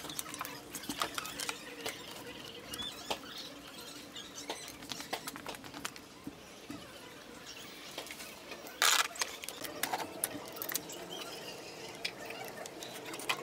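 Scattered light clicks and taps of tools and metal parts being handled during scooter engine assembly, with a louder clatter about nine seconds in, over a faint steady hum.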